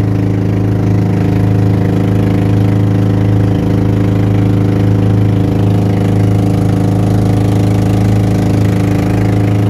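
Engine of a motorized outrigger boat running steadily while under way, a constant low drone that holds one pitch.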